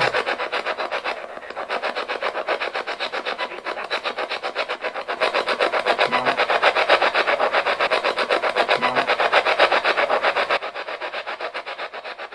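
Spirit box sweeping through radio stations: rapid, even pulses of choppy static, several a second. A brief low knock comes about six seconds in, taken as a reply to the call to knock back.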